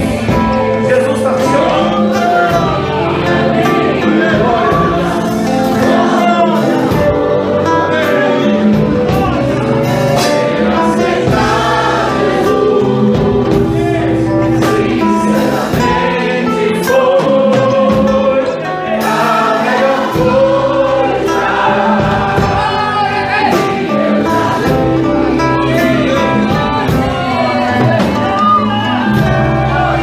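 Gospel worship song: several voices singing together over instrumental accompaniment.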